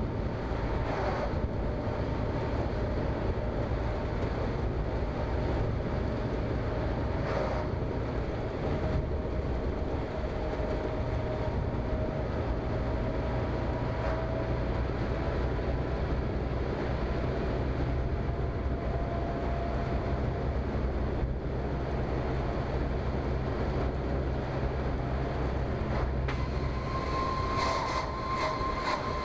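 Engine drone and road noise inside a heavy vehicle's cab while driving at a steady speed, with a faint steady whine over the rumble. A higher whine comes in near the end.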